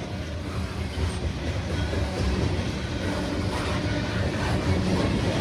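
Slow-moving loaded coal train rolling past at about 26 mph: a steady low rumble of heavy cars and wheels on the rails, growing slightly louder toward the end. No horn sounds.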